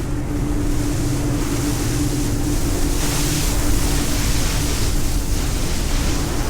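Speedboat under way: a steady engine drone under wind buffeting the microphone and the rush of water past the hull.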